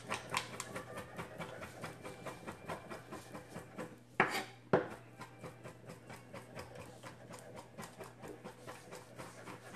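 Kitchen knife chopping fresh rosemary on a wooden cutting board: a quick, even run of light knocks, with two louder knocks a little over four seconds in.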